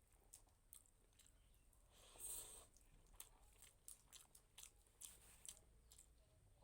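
Faint close-up sounds of a person eating rice and vegetable curry: soft chewing and wet mouth clicks, with one louder, brief noisy sound about two seconds in.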